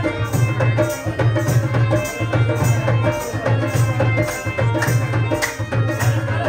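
Pashto folk music led by tabla playing a steady rhythm, with deep bass strokes about twice a second and sharper strikes in between.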